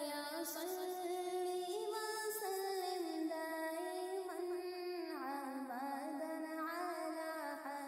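Quiet background music: a wordless hummed vocal melody with slowly gliding pitch.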